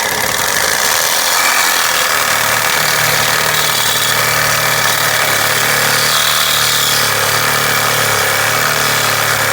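Reciprocating saw running steadily under load, its blade cutting through a stripped exhaust bolt that holds up the old catalytic converter.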